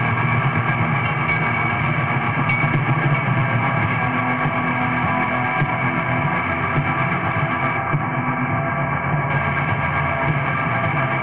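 Raw lo-fi black metal: a dense, unbroken wall of distorted guitar and bass.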